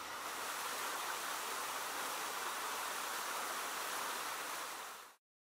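Fountains splashing steadily into shallow pools. The sound stops abruptly about five seconds in.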